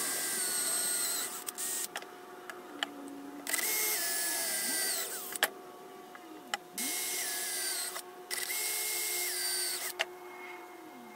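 Cordless drill boring small holes through thin painted sheet metal in about four short bursts. Its motor whine drops in pitch as the bit bites, with clicks and knocks of the metal piece being handled between bursts.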